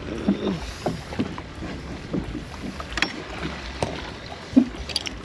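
Choppy water lapping around a kayak, with wind on the microphone and scattered light knocks and taps.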